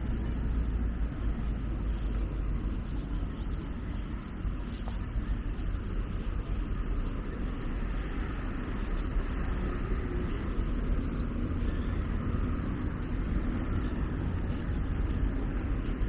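Steady road traffic: cars and other vehicles passing on the road alongside, a continuous hum of tyres and engines.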